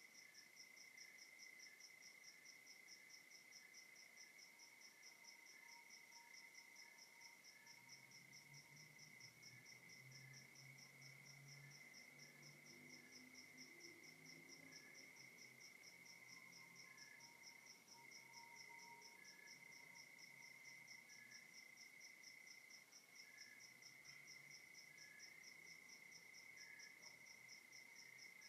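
Crickets calling in a night forest, faint: one holds a steady trill while another pulses evenly at a higher pitch, with scattered short chirps among them. A faint low hum comes in about eight seconds in.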